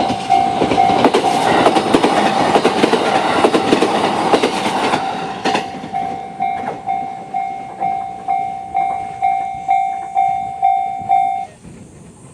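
JR-standard level-crossing warning bell ringing in steady electronic dings about twice a second, while an E129-series train runs over the crossing during the first five seconds or so, its wheels clacking over the rail joints. After the train has gone the bell keeps ringing, then cuts off suddenly near the end.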